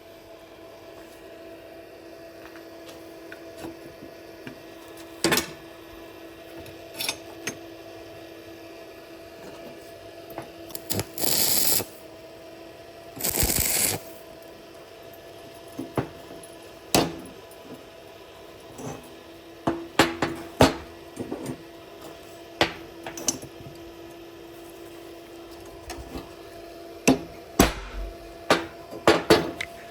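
Metal workshop sounds: scattered clinks and knocks of steel parts being handled and tapped over a steady hum. Two hissing bursts of about a second each come near the middle.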